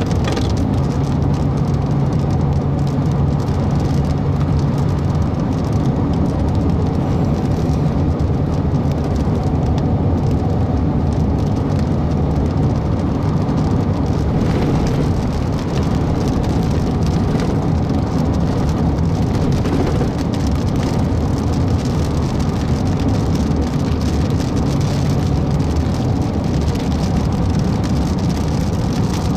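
Steady road and engine noise from inside a moving car, with rain hitting the car's glass and body.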